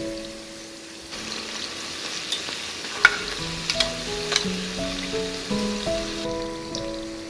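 Hand-made pies deep-frying in hot oil, a steady sizzle with a few sharp clicks, the loudest about three seconds in, over background music with a slow melody.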